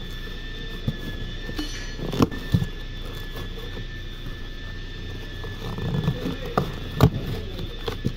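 Cardboard packaging being handled and torn open, with several sharp knocks as the new A/C compressor inside is knocked and shifted. The loudest comes about 7 seconds in. A steady high whine runs underneath.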